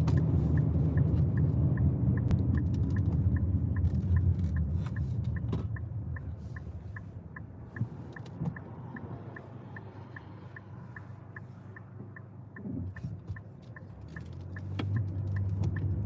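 Car's turn-signal indicator ticking steadily, about three ticks a second, over the rumble of road noise inside the cabin. The rumble fades about five seconds in as the car slows for a turn and builds again near the end as it pulls away.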